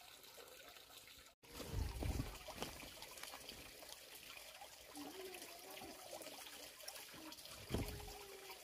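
Water trickling steadily, with a few faint short pitched calls and two low thuds, one about two seconds in and one near the end.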